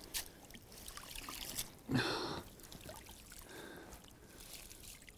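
Faint trickling and splashing of water as a hand works in weedy shallow water, with one louder short sound about two seconds in.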